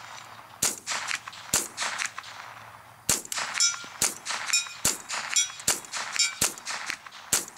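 Colt Stagecoach .22 LR semi-automatic rifle fired about eight times in steady succession, roughly one shot a second. About half a second after several shots comes a faint metallic ping as the bullet hits a steel gong at 100 yards.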